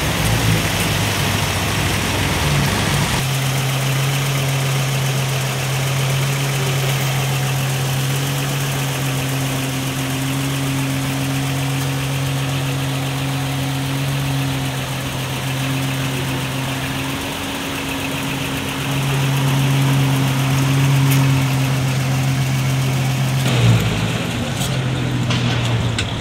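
Humber Super Snipe Series V's straight-six engine idling steadily with an even low hum, then pulling away near the end.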